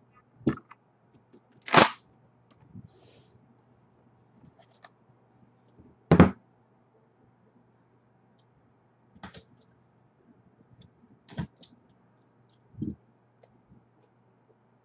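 Scattered sharp clicks and knocks of trading cards and their packaging being handled on a table, about half a dozen, the loudest about six seconds in, over a faint steady low hum.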